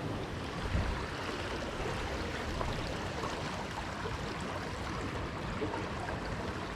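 Steady rush of flowing river water, with a faint low bump about a second in.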